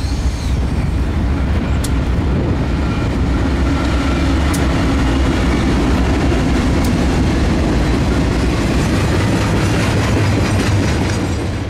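CSX diesel locomotives of a double-stack intermodal freight train passing close with engines running, followed by container well cars rolling by. The wheels click sharply over the rail joints a few times.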